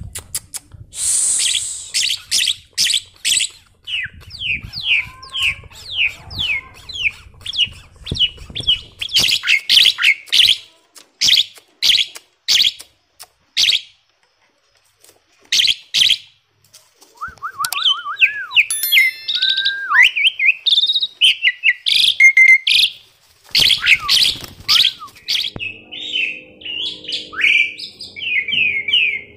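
Asian pied starling chattering in quick runs of short, sharp notes, broken by a brief pause about halfway and then by whistled notes that rise and fall before the chatter resumes.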